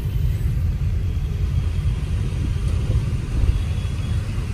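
Car in motion heard from inside the cabin: a steady low rumble of engine and road noise.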